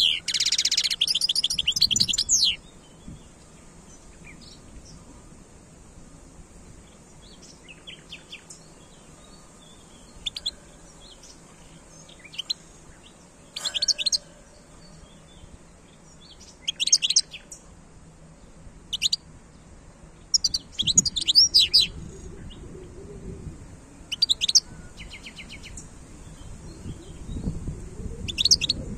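European goldfinch singing: a dense burst of rapid, high twittering song in the first couple of seconds, then short chirps and brief twittering phrases scattered with pauses between them.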